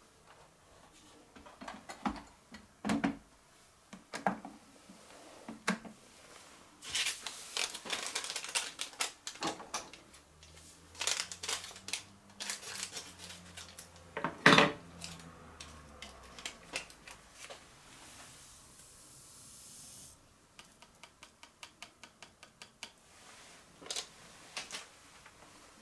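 Clicks, knocks and clatter of a Panasonic SD-MDX100 bread maker being handled and loaded, with one sharp loud knock about halfway through. Later comes a short steady hiss as dry yeast is poured into the machine's yeast dispenser, followed by a quick run of light taps.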